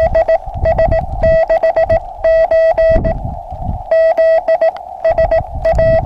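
Morse code (CW) tone from a ham radio, a single steady pitch keyed in quick groups of dits and dahs, over receiver hiss and a low rumble.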